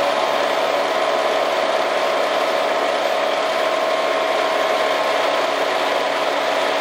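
A 1960s press brake running, its roughly 900 lb flywheel spinning on bad bearings: a loud, steady mechanical run with a fine, fast rattle and one constant tone.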